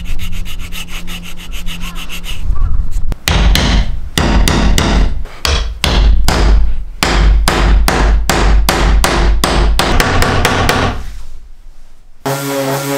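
A flat steel file rasps in quick strokes across a small hardwood butterfly key clamped in a vise. After that comes a long run of sharp hammer blows on wood, about three a second, driving the key into its recess. Near the end an electric orbital sander starts humming.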